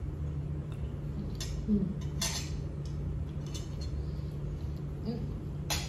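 Metal forks clinking and scraping against plates while eating: a few separate short clicks, the loudest about two seconds in and just before the end, over a steady low hum.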